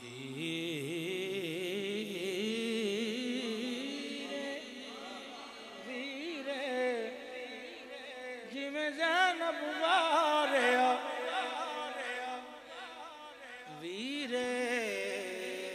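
A man's voice chanting a devotional poem in praise of Hussain into a microphone, in a drawn-out melodic style with long held notes that waver in pitch. It is loudest a little past the middle.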